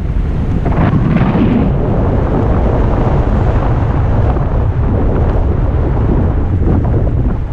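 Wind buffeting an action camera's microphone on a mountain bike riding fast down a dirt trail: a loud, steady rumble, with a short stretch of rattling from the bike over rough ground about a second in.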